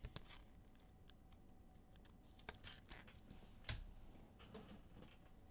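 Faint, irregular light clicks and taps, with one sharper tap about three and a half seconds in.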